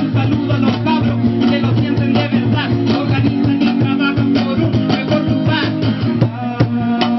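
Rapping into a handheld microphone over live backing music, with a steady bass line and regular percussive hits.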